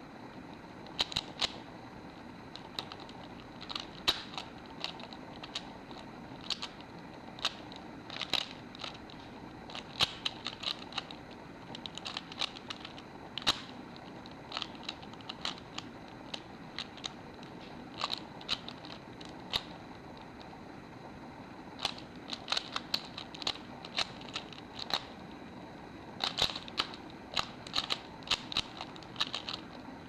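3x3 Rubik's cube being turned fast, its plastic layers clicking in quick irregular runs, with a short lull about two-thirds of the way through.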